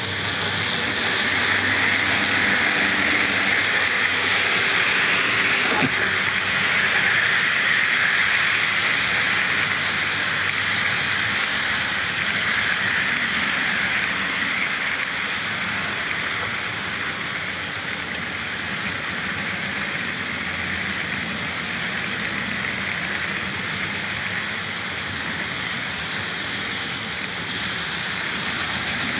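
Model double-stack intermodal container cars rolling past on the layout track: a steady rushing clatter of small metal wheels on rail, louder over the first several seconds, easing off in the middle and swelling again near the end.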